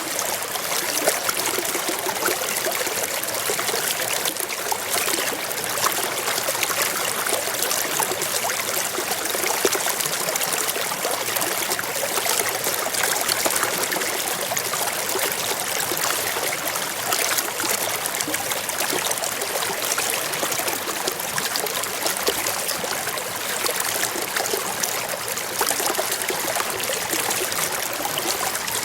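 A small stream running over rocks: a steady, even rush of flowing and trickling water.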